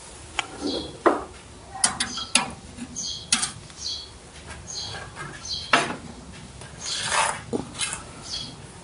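Irregular sharp clicks and clatter of cable connectors being handled and pulled at the rear ports of a desktop computer's metal case.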